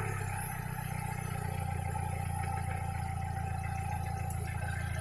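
Mercedes-Benz W124 E200's M111 four-cylinder engine idling steadily after a rev has died down. The owner reports an intermittent knock in this engine, mostly when it is warm.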